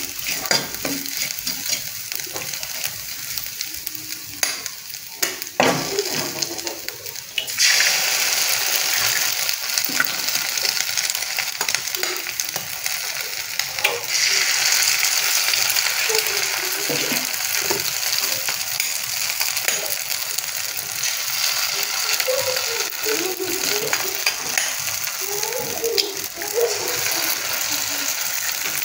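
Ground masala frying in oil in a nonstick pan, sizzling as a steel spoon stirs and scrapes it. Eggs cracked on the spoon drop into the hot pan, and the sizzle jumps louder about seven seconds in and again about halfway through.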